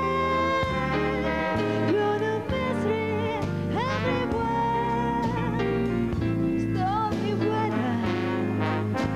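A woman sings a slow jazz ballad with a wide vibrato, live into a microphone, backed by a big band. The band's sustained horn chords and a walking low bass line move under the voice.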